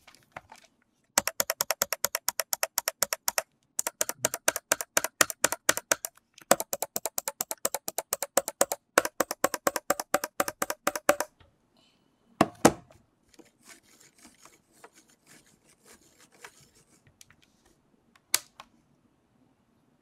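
Kensington SlimBlade Pro trackball's corner buttons clicked rapidly, about nine clicks a second, in four runs of about two seconds each. About twelve seconds in comes a heavier knock as the ball is set back into its socket, then light handling noise and one more sharp click near the end.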